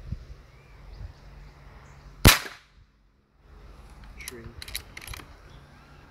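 Air rifle firing a single shot about two seconds in, one sharp crack, followed a couple of seconds later by a few quick clicks.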